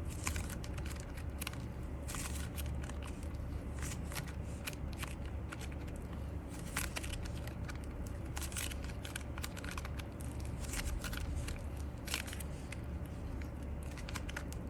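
Slime being mixed and worked, giving many irregular sticky clicks and crackling pops, over a steady low hum.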